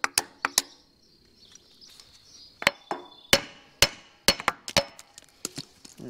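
About ten sharp metal knocks on a hay rake's drive-wheel hub and axle, irregularly spaced and some in quick pairs. They come as a couple of strikes, a pause of about two seconds, then a quicker run of blows.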